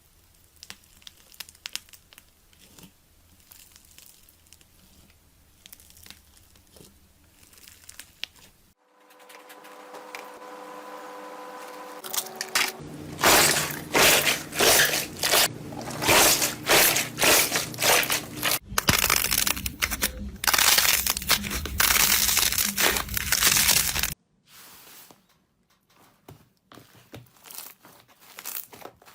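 Crunchy slime being squeezed and pressed by hand, crackling and popping. It starts faint, turns loud and dense in the middle, then goes softer again. A few seconds of steady hum come just before the loud stretch.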